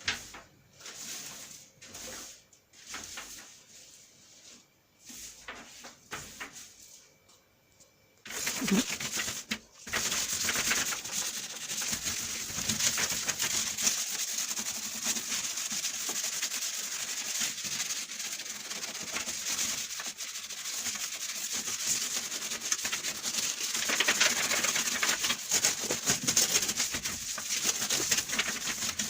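Faint rustling and handling noises, then from about eight seconds in a steady, rough scrubbing rub that carries on, as of a stovetop being scrubbed by hand.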